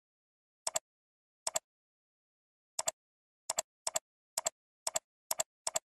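Computer mouse button clicking about nine times at uneven intervals, each click a quick press-and-release double tick, with dead silence in between.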